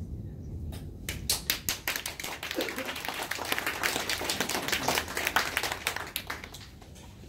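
A small audience clapping. A few separate claps about a second in build into steady applause, which dies away near the end.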